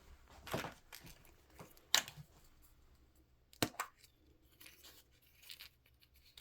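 Wrapping being torn and crinkled as a mystery ball is unwrapped by hand, in a few short separate rips and rustles.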